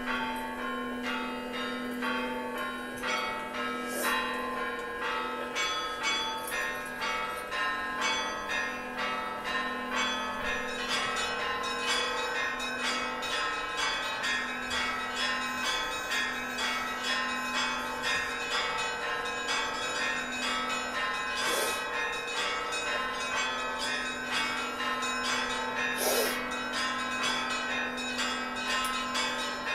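Church bells ringing: several bells of different pitch struck in a quick, even run of strokes over a steady low bell tone.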